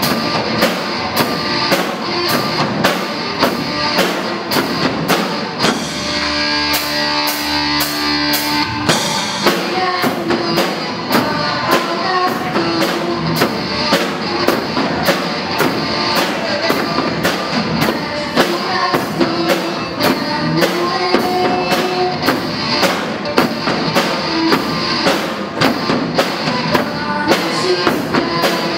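Live rock band with a drum kit, hand-held bass and snare drums, and electric guitar playing a song, the drums beating a steady pulse of about two hits a second. A few seconds in, held chord tones ring out for a few seconds before the full beat carries on.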